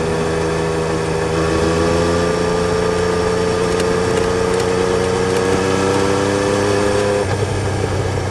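Yamaha Tracer 900 GT's three-cylinder engine running at a steady pitch that slowly rises, then changes note about seven seconds in.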